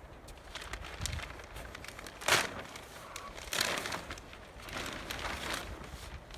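Storm-torn black plastic sheeting crinkling and rustling as it is handled, in several noisy swishes, the loudest about two seconds in.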